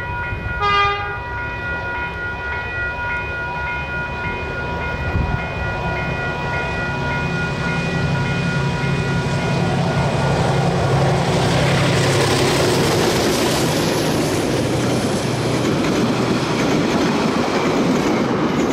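Two DJ class diesel-electric locomotives climbing under power, their engine sound growing louder as they approach and pass close by. It is followed by the clatter and rumble of the carriages on the rails.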